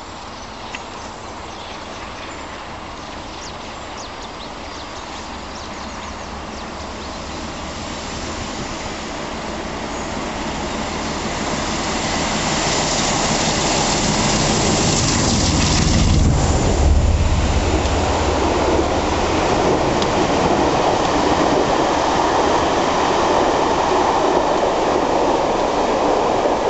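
Class 47 diesel locomotive with its Sulzer twelve-cylinder engine working hard at full power. It grows steadily louder as it approaches and is loudest as it passes close by about sixteen seconds in. Then comes the steady roar of its coaches running past.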